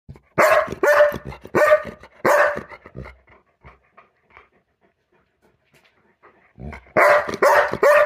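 Part Great Pyrenees dog barking in excitement: four short barks in quick succession, a pause of a few seconds, then another quick run of barks near the end.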